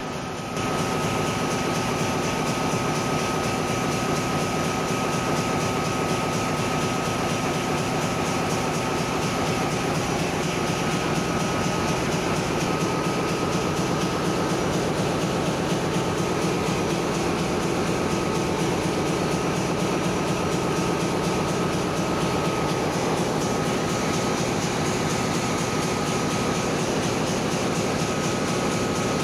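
Steady, loud drone of a ship's engine-room machinery running, with a thin constant whine above it.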